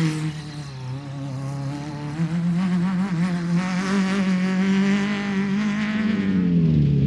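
Off-road race vehicle's engine running hard. Its pitch dips about a second in, climbs and holds high, then falls away near the end.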